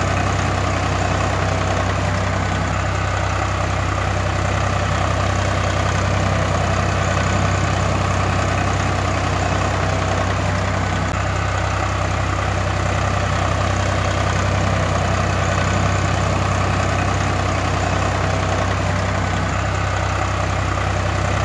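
Tractor engine idling, a steady unchanging sound with an evenly repeating low pulse. It is most likely a dubbed engine recording rather than anything from the unpowered toys.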